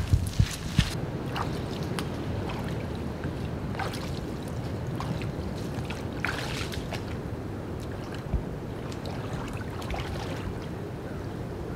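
Boots slogging through wet mud: a steady low sloshing rumble with scattered soft squelches and clicks.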